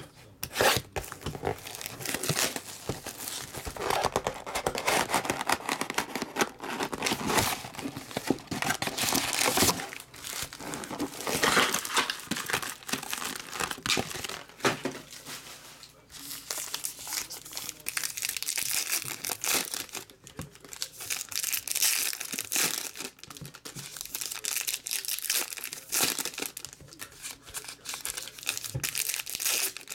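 Foil wrappers of 2018 Panini Diamond Kings trading-card packs being torn open and crinkled by hand, an uneven, continual rustling and ripping.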